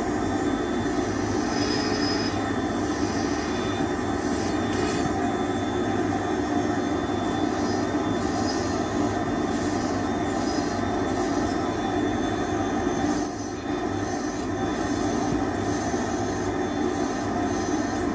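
Dental lab micromotor handpiece running at high speed, its bur grinding through the connectors of a milled pre-sintered zirconia disc to cut the crowns free. It gives a steady whine, with high squeals that come and go as the bur bites into the zirconia.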